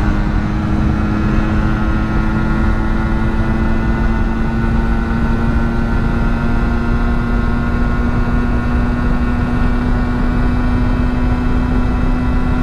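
1988 Kawasaki GTO 125's two-stroke single-cylinder engine running at high revs at near full throttle, its pitch rising slowly as the bike gains speed toward its top speed. Heavy wind rumble on the microphone runs under it.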